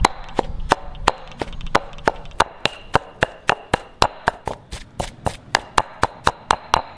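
Stone pestle pounding moist Thai green curry paste in a stone mortar: a steady run of dull strikes, about three to four a second, quickening slightly toward the end.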